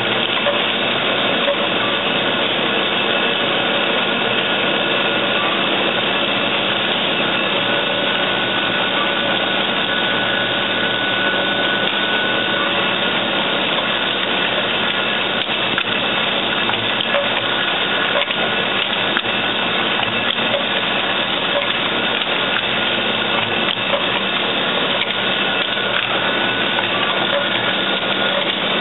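Automatic needle assembly machine running: a steady, dense mechanical clatter of many fine ticks over a few constant hums, unchanging throughout.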